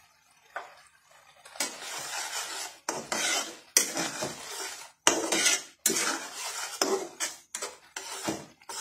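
A spatula stirring and scraping through chicken and vegetables in a wet sauce in a metal pan, in repeated strokes about one a second that begin a second or so in.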